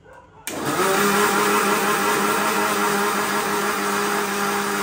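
Electric Indian mixer grinder switched on about half a second in: its motor spins up with a short rising whine, then runs steadily at full speed, grinding wet masala paste in a small steel jar held shut by hand.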